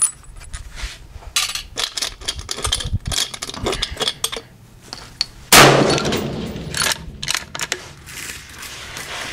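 A single .30-06 rifle shot from a Savage 111, sudden and loud, about halfway through, dying away over about a second. Before and after it come scattered sharp clicks and knocks.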